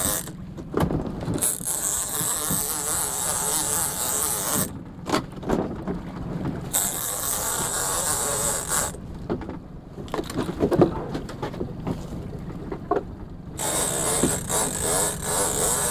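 Big-game lever-drag fishing reel working under heavy load, with mechanical clicking and whirring, during a long fight with a bluefin tuna. Stretches of high hiss come and go, with scattered knocks.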